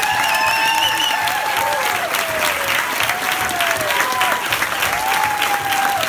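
Audience applauding, dense clapping throughout, with several voices calling out in long whoops that rise and fall over it.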